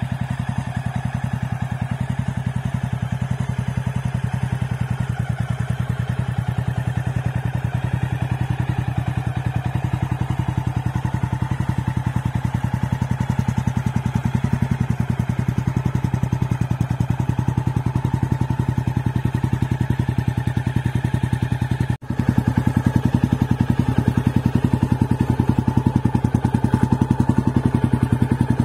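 Honda XL 600R's air-cooled single-cylinder four-stroke engine idling steadily, with even exhaust pulses and no revving. The sound breaks off for a moment about three-quarters of the way through, then carries on slightly louder.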